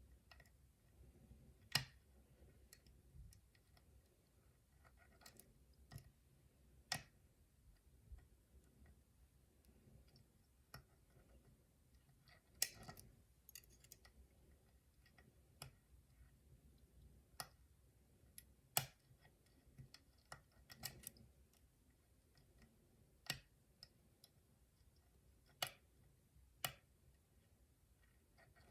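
Lock pick and tension wrench working in a five-wafer locker lock during single-pin picking: quiet, with sharp metallic clicks at irregular intervals, about ten of them louder than the rest.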